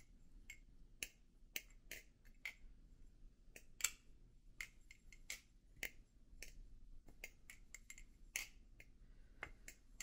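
Hazetac Jigsaw balisong (butterfly knife) being flipped: irregular sharp clicks of the handles and blade knocking together, a couple a second, the loudest about four seconds in.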